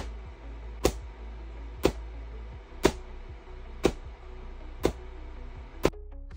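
QCW (quasi-continuous-wave) pancake Tesla coil firing single long sparks, one sharp crack about every second, seven in all, over a steady low hum and hiss. Background music with a simple melody plays underneath. The hum and hiss cut off just after the last crack.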